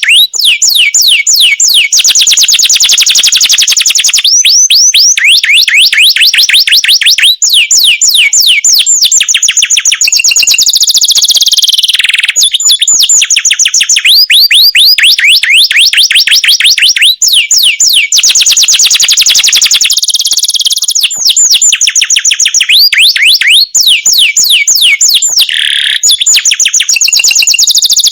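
Domestic canary singing loud, fast trills: rapid runs of repeated whistled notes, the note type changing every second or two, with long rolling trills.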